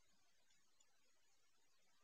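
Near silence: only a faint steady hiss.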